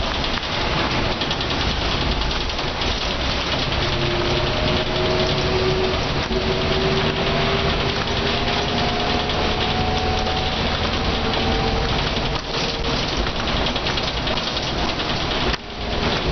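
Mercedes O405N bus's diesel engine and ZF automatic gearbox heard from on board under way with kickdown, a whine rising slowly in pitch over several seconds as the bus gathers speed, over tyre hiss from the wet road. The noise drops away briefly near the end.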